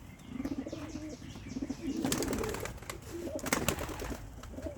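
Domestic pigeons cooing in a loft, low wavering coos overlapping, with scattered clicks and rustles of birds moving about.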